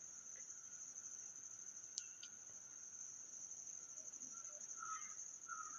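Faint, steady, high-pitched cricket chirring in the background, with a single faint click about two seconds in and a few faint bird calls near the end.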